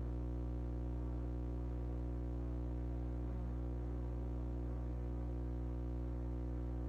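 Steady low electrical hum, a deep drone with a stack of evenly spaced overtones above it. The owner cannot explain why it hums.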